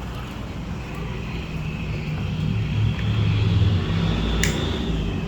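A motor vehicle's engine rumbling, growing louder toward the middle and then easing off, with a thin steady high tone above it and one sharp click about four and a half seconds in.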